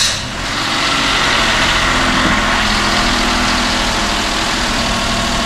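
Daihatsu Tanto Custom's three-cylinder engine, just started, settling within the first second into a steady idle. It is running on fresh engine oil and a new oil filter after an oil change.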